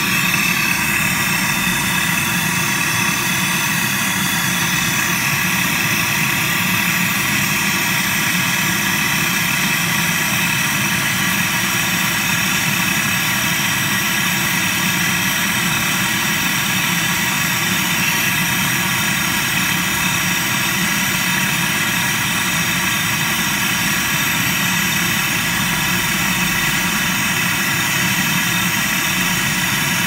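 Gas brazing torch flame burning steadily, with no change in level, as it heats a copper tube joint to red heat while brazing rod is fed in.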